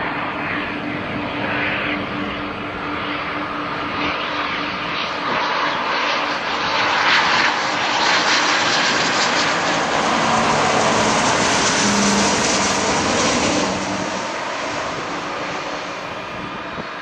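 Gulfstream V business jet's two Rolls-Royce BR710 turbofans on landing approach with gear down: a steady rushing jet noise that swells as it comes close, is loudest in the middle, then eases off near the end.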